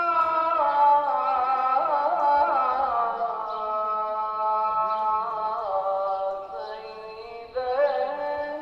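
A single voice chanting slowly in long, melismatic phrases, each held note decorated with wavering turns of pitch. One phrase fades away about seven seconds in, and a new one begins half a second later.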